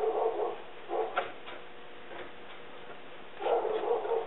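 A dog barking outdoors in short bouts: barks at the start and about a second in, then a longer run of barks about three and a half seconds in.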